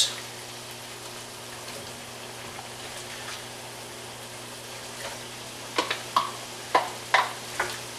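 Chicken sizzling and bubbling in a hot frying pan in its soy sauce, rice wine and sugar mixture, a steady hiss. From about six seconds in, several sharp knocks as potato pieces are scraped out of a plastic bowl with a wooden spatula and dropped into the pan.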